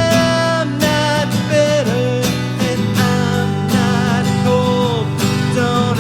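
Live acoustic guitar music, strummed chords under a lead melody line of held notes that slide and waver in pitch.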